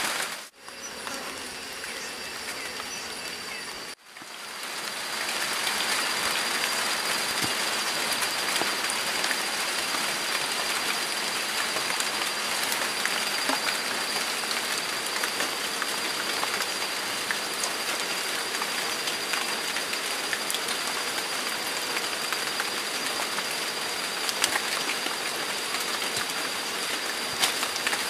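Steady rain falling. The sound dips briefly near the start and cuts out sharply about four seconds in, then the rain comes back slightly louder, with a few scattered clicks.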